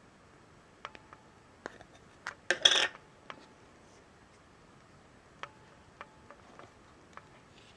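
Small hard plastic figure parts clicking and knocking together as they are handled, with a louder scraping rattle of plastic about two and a half seconds in.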